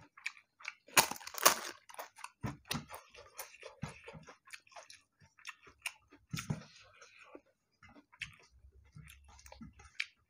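Someone biting and chewing crisp papad with rice, close to the microphone: two loud crunches about a second in, then a run of smaller crunches and chewing clicks.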